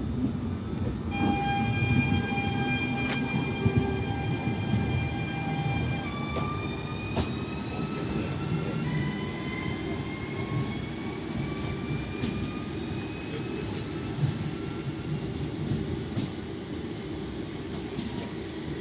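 Alstom Régiolis regional train pulling away under electric traction, its traction inverters whining in a set of steady tones over a low rumble. About six seconds in the whine begins to climb slowly in pitch as the train gathers speed.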